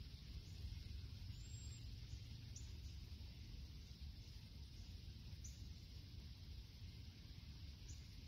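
Faint outdoor ambience: a steady low rumble and a soft high hiss, with a few brief, faint high chirps.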